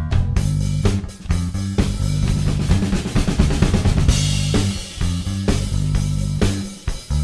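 Background music: a rock-style track with a steady drum beat and a fast drum roll in the middle, over a bass line.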